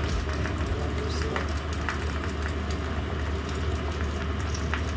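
Noodles sizzling in a frying pan as tongs toss them, with a few sharp clicks of the tongs against the pan. A steady low hum runs underneath.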